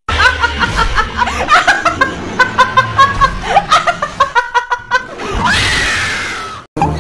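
A young woman laughing hard in rapid, choppy bursts, then breaking into a drawn-out shriek near the end that cuts off abruptly.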